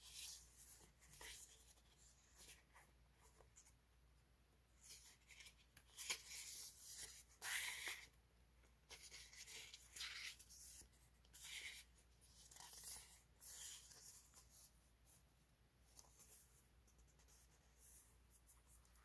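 Stack of printed paper sheets handled and flipped through, the sheets sliding and rubbing against each other in faint, irregular rustles, busiest about a third of the way in.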